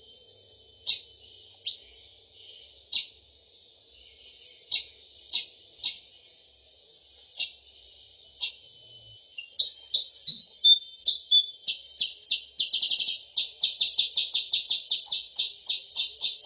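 Recorded calls of the kutilang sutra (percang) bulbul played as a lure: single sharp, high chirps spaced a second or so apart, then from about ten seconds in a fast, louder run of chirps at about four to five a second.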